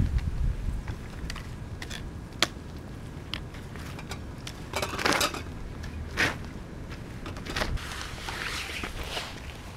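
Footsteps of hiking boots on damp ground littered with leaves and twigs, then on rock: a few separate footfalls spaced irregularly about a second apart, over a low steady rumble.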